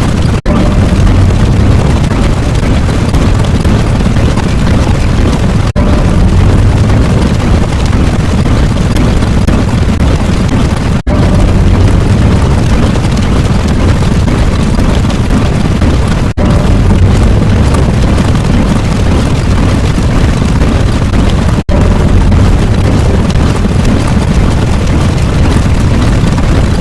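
A loud, dense rumbling sound effect like an explosion, heaviest in the low end. It runs in stretches of about five seconds, broken by a brief cut five times, and stops abruptly near the end.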